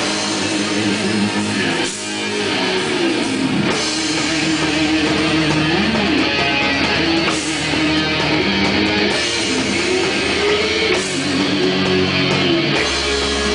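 Live heavy metal band playing: electric guitar carrying a melody of long held notes over bass guitar and the full band.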